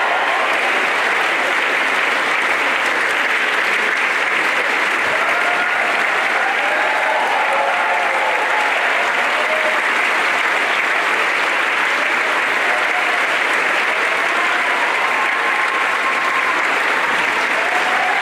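Large crowd applauding steadily, with some voices calling out over the clapping.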